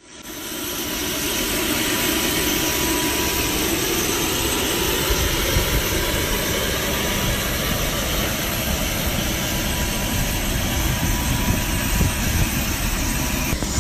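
Private jet's engine and air noise heard inside the cabin: a steady rush with a thin high whine running through it.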